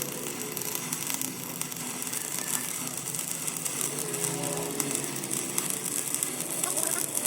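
Electric arc welding on a truck axle housing: a steady crackling sizzle of the arc.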